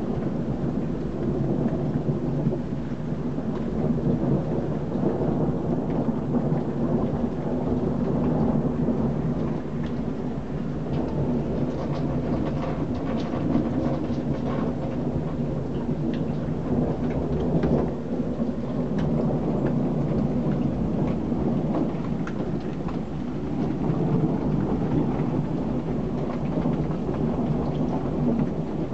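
Steady heavy rain during a thunderstorm, a dense hiss with scattered fine drop ticks over a low rumble that swells and fades gently.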